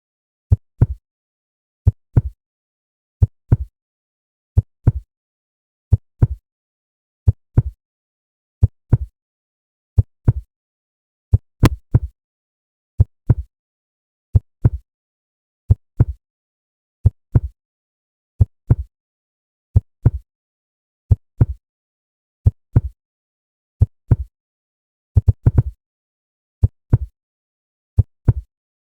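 Human heartbeat: paired low thumps (lub-dub), one pair roughly every second and a third, with a brief cluster of extra thumps about 25 seconds in.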